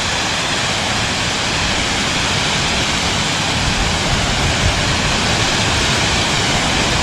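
A waterfall's steady rush of falling water, loud and unbroken, with a low rumble underneath.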